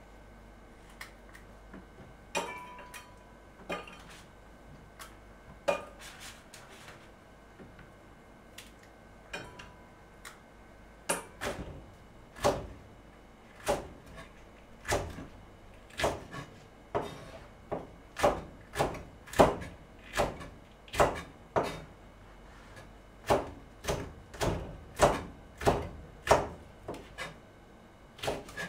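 Shishito peppers being stemmed by hand, a few scattered light snaps and taps, then a kitchen knife chopping them into rings on a plastic cutting board. The chops start slowly about a third of the way in and settle into about two a second.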